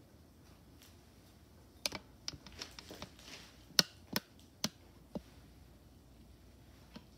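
Sharp clicks and light knocks of plating by hand: bamboo skewers, small plates and a ramekin handled on a granite countertop, in a quick cluster from about two to five seconds in, with one more faint click near the end.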